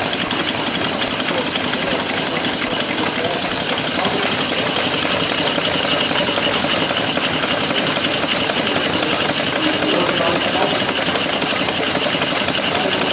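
Small engines running with a steady mechanical clatter, and a sharp tick repeating evenly a little more than once a second. Voices murmur in the background.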